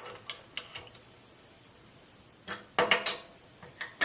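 Light metal clicks and clinks from a wrench tightening the lock nut on the hex-bolt fence stop of a 4x6 metal-cutting bandsaw: a few scattered clicks early, then a denser run of them in the second half.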